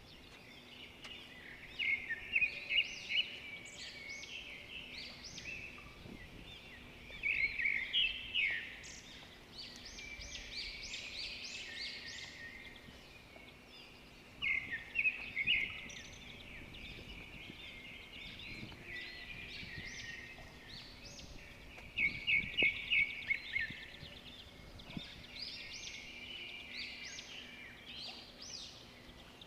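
Birds singing: bursts of quick, high chirping phrases that come every few seconds over faint outdoor background noise.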